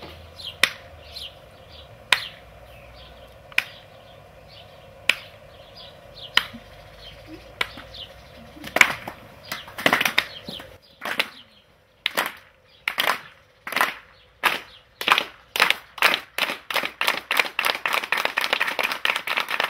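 Hand clapping: single sharp claps about every second and a half, then from about halfway through more hands join in and the claps come faster and faster, several a second near the end.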